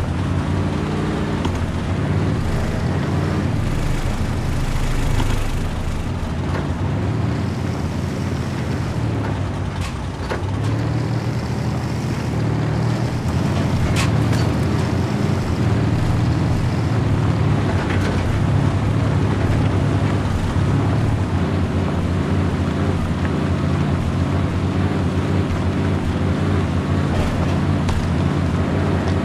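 Electric motor and geared drivetrain of a radio-controlled scale crawler truck whirring steadily as it crawls over rough dirt, with a single sharp click about halfway through.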